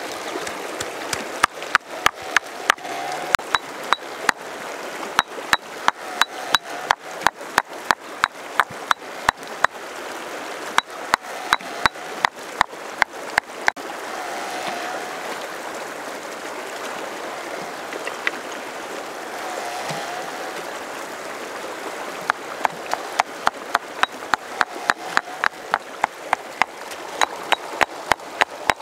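Stone pestle pounding garlic and greens in a stone mortar: sharp knocks about three a second over the steady rush of a fast river. The pounding stops about halfway through, leaving only the river for several seconds, then starts again.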